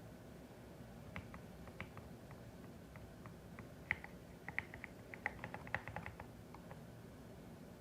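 Typing on a CIDOO ABM081 mechanical keyboard with Carda switches: scattered single keystrokes, then a quicker run of keys from about four to six seconds in.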